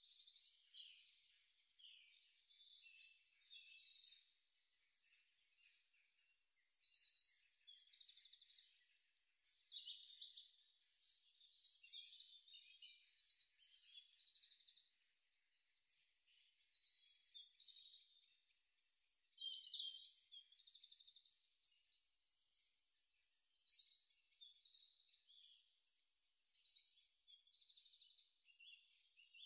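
Small birds chirping and trilling nonstop, a dense chatter of high, rapid trills with a few brief lulls.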